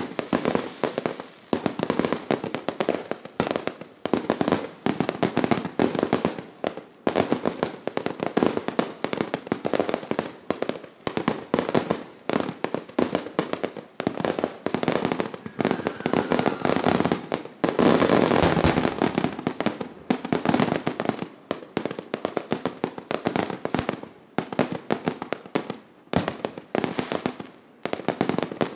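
Aerial fireworks going off in a dense, unbroken barrage of bangs and crackling pops, loudest about eighteen seconds in.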